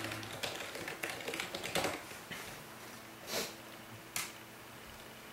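Typing on a computer keyboard: quick, irregular key clicks in the first two seconds, thinning to a few scattered clicks.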